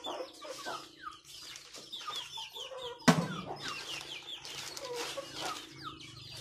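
Chickens clucking with many short, high, falling peeps, and one sudden sharp knock about three seconds in.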